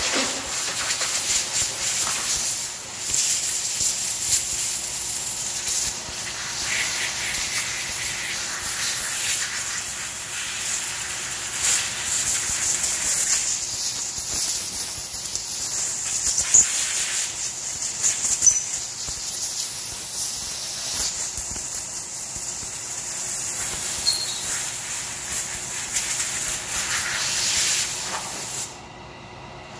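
A pointed metal hand tool scraping hardened resin out of cracks in a pine slab: a continuous scratchy hiss made of uneven strokes, which stops about a second before the end. The resin is being cleared by hand so that it does not clog the sandpaper.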